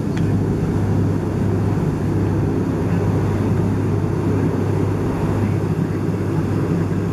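Boat engine running steadily under way, a constant low hum with the rush of wake water and wind over it.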